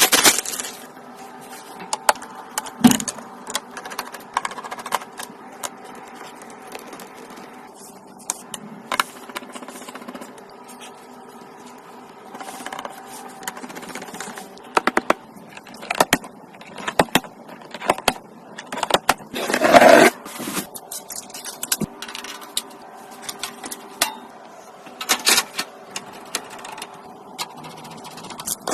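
Irregular clicks, taps and scrapes of computer parts and small metal pieces being handled and fitted together, with a louder scrape about twenty seconds in.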